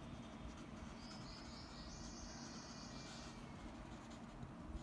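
Marker pen writing on a whiteboard: a faint, high squeak that starts about a second in, rises in steps and lasts about two seconds.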